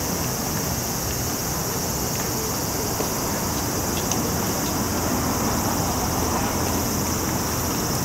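Steady, high-pitched chorus of summer insects, shrilling without a break over a low, even background rumble of open-air ambience.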